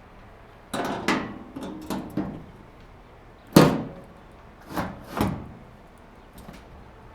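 Sheet-metal dryer cabinet panels being fitted back on: a run of about seven knocks and clatters, the loudest about halfway through.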